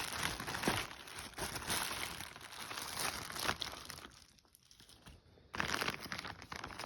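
Packaging crinkling and rustling as a parcel is unwrapped, with a brief lull about four seconds in.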